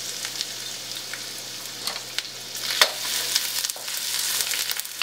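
Chopped garlic and ginger sizzling in hot oil in a wok, stirred with a wooden spatula that scrapes and knocks against the pan a few times, sharpest about two and three seconds in.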